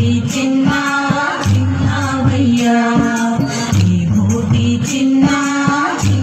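Music: a devotional song, with singing in repeating melodic phrases over a steady percussion beat.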